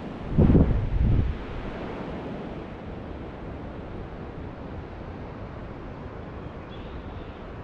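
Wind blowing across the microphone. About half a second in come two heavy low buffets, then a steady rush of wind.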